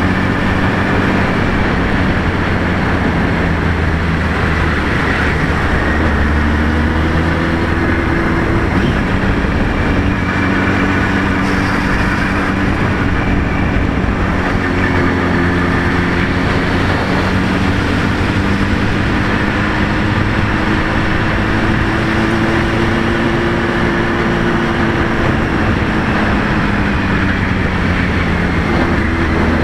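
Honda Hornet 900's inline-four engine running under way, its pitch rising and falling with throttle and gear changes, under a steady rush of wind noise on the microphone.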